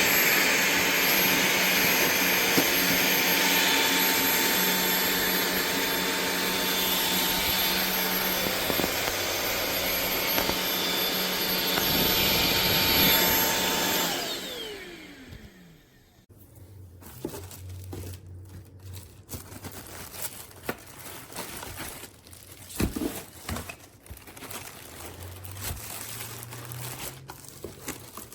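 Cordless stick vacuum (Kermoky) running steadily, then switched off about halfway through, its motor whine falling as it spins down. Faint clicks and handling noises follow.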